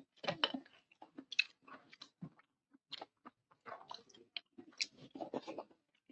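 A person chewing and biting food close to the microphone: an irregular run of short, crisp crackles and mouth sounds.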